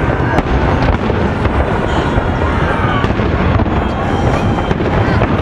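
Fireworks display: a steady, dense din of shells bursting and crackling, with several sharp bangs standing out above it.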